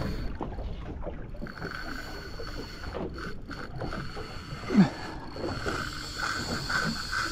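A fishing reel whirring steadily from about a second and a half in, as line is worked against a hooked fish on a bent rod, over low water and boat noise. A brief falling sound, the loudest moment, comes about five seconds in.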